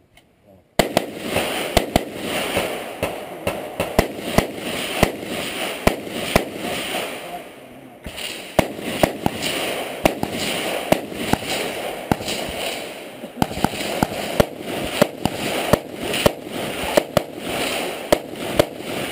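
AR-15-style semi-automatic rifle fired shot after shot in quick strings, starting about a second in, with short pauses about eight and thirteen seconds in. A constant rushing noise runs under the shots.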